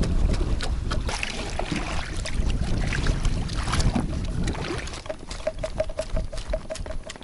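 Water splashing and lapping around an inflatable boat, with rumbling wind on the microphone and scattered clicks and knocks as the oars and gear are handled. From about five seconds in there is a quick run of short, even pips, about five a second.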